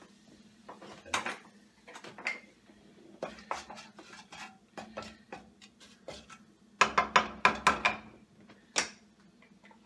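Wooden spatula knocking and clicking against a nonstick pan while stirring bay leaves and peppercorns in hot oil, with a quick run of sharp clicks near the end.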